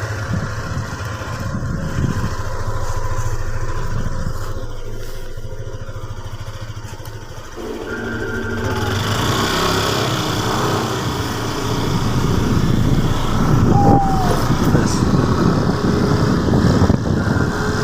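Motorcycle engine running steadily. It eases off about seven seconds in, then picks up and runs louder through the rest.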